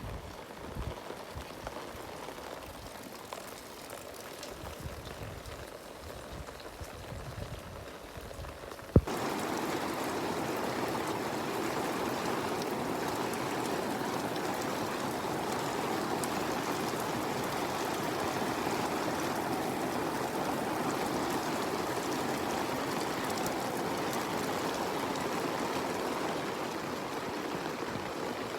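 Rain falling, quieter at first with some low rumbling. About nine seconds in, a single sharp click, after which the sound becomes a louder, even rush of heavy rain and running water.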